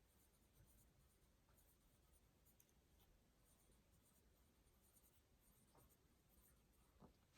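Near silence: faint scratching of a pen writing on paper, with a soft tap near the end.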